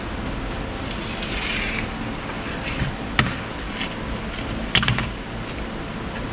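Wrench working the nut of a Skoda Fabia's anti-roll bar link: scattered metal clicks and clinks, a sharp one about three seconds in and a cluster near five seconds, with a brief scraping rustle about a second in, over a steady background hum.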